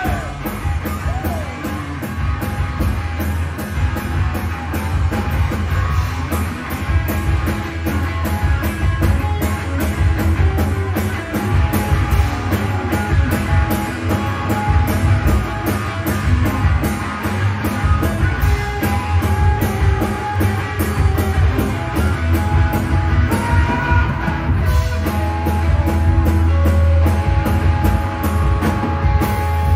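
Live rock band playing: electric guitars, bass guitar and a drum kit driving a steady beat.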